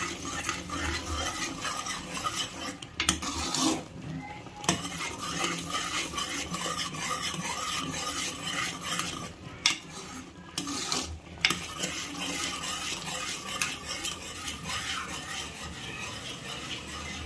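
Metal ladle stirring thick urad dal porridge with palm jaggery in an aluminium pressure cooker, scraping and clinking against the pot, with a few brief pauses. The stirring dissolves the jaggery into the cooked dal.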